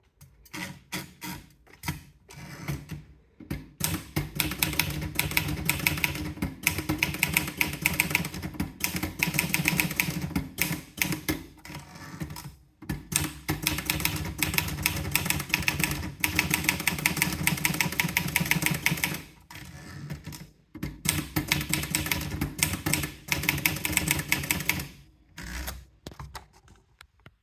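Olivetti Lettera DL manual portable typewriter being typed on: rapid runs of key strikes, many a second, broken by a few short pauses.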